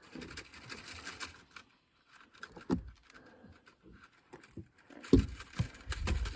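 Handling noise from fishing gear being worked: rustling and scattered clicks, with a single knock partway through and two heavier thumps near the end.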